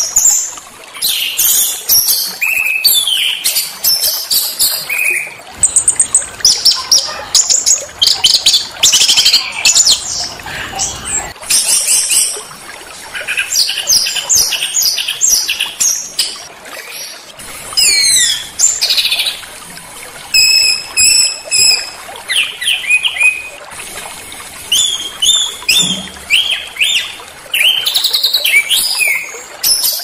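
Small songbirds singing in quick succession: rapid high chirps, trills and short sliding whistles, with a harsh run of evenly repeated notes about two-thirds of the way through.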